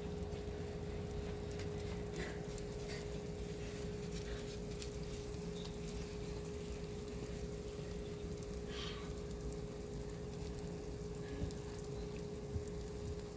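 Steady low hum over a low rumble, with a few faint, brief high-pitched sounds.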